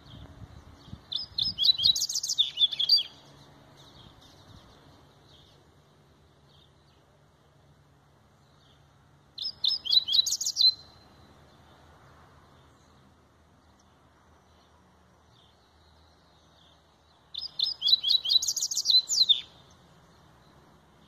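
Double-collared seedeater (coleiro) singing a Laranjeira-style song in three short phrases: one about a second in, one about nine seconds in, and one near the end. Each phrase is a quick run of repeated high, sharp notes.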